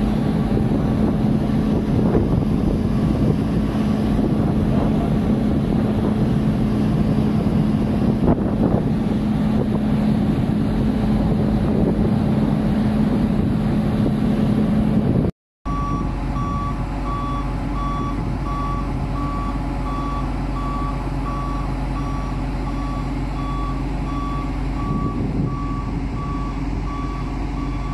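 Heavy diesel machinery running with a steady low hum. After a sudden cut about halfway through, a machine's reversing alarm beeps over and over at an even pace above the engine noise.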